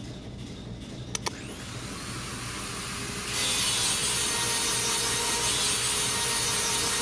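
Pneumatic angle grinder: two sharp clicks about a second in, then a rising whine as the disc spins up. From about three seconds in it grinds a metal bar with a loud, steady grinding noise.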